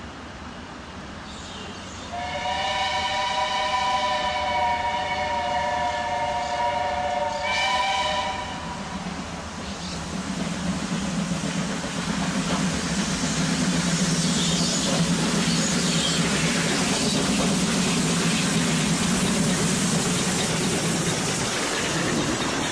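Steam locomotive whistle: one long chord-like blast of about five seconds, then a short toot. The locomotive then draws near and passes close by, its running noise building into a steady loud rumble as the coaches roll past.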